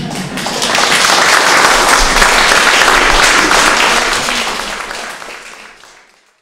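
Audience applauding, building up within the first second and then fading out near the end.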